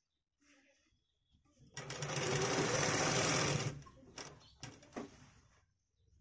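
Bharat sewing machine running for about two seconds as it stitches the pant back pocket cloth, followed by a couple of short sharp clicks. Before the run there is only faint handling of the fabric.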